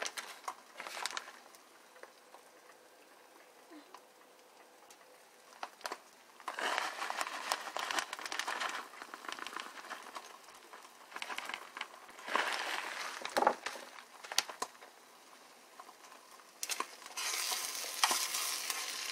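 Beaten eggs sizzling in a nonstick frying pan, with a metal spoon scraping and pushing them around in three louder spells of stirring.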